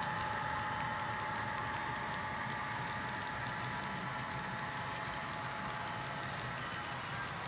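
HO scale model freight train rolling along the track: a steady rolling hiss with a held whine from the locomotives, and a rapid series of light ticks from the wheels over the rail joints, slowly getting quieter as the train pulls away.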